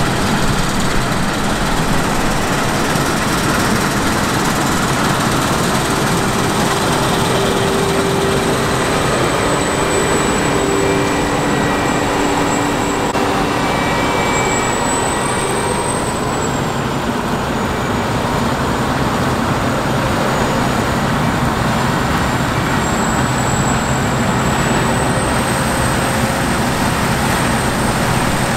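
Steady road-vehicle or traffic noise at an even level, with a faint high whine that wavers slightly in pitch.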